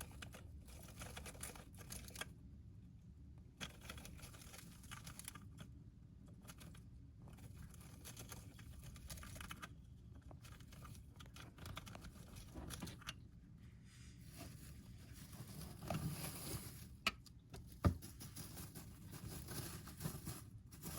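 Small rustling, scratching and crinkling sounds of a pet hamster moving about its bedding, with two sharp clicks near the end, the second the loudest.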